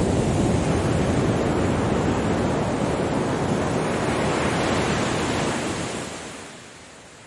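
Ocean surf: a wave breaking and washing in as a loud, dense rush, which fades to a soft hiss about six seconds in as the wash dies away.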